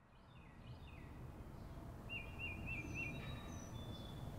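Songbirds calling outdoors, fading in from silence. First comes a run of falling whistled notes, then about halfway through a quick series of four rolling trills and a few high thin whistles, all over a low steady rumble.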